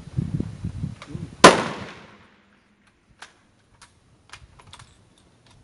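A single shot from a military bolt-action service rifle, sharp and loud with a short echo tailing off. A few faint light clicks follow over the next few seconds.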